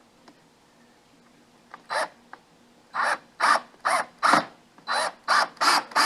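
A crow cawing: one harsh caw about two seconds in, then a quick series of caws, two to three a second, through the rest.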